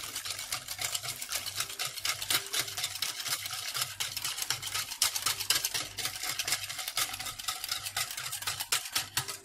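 A utensil beating rapidly against a mixing bowl, several quick clicking strokes a second, as hot milk is mixed into egg yolks, sugar and starch for a lemon pastry cream.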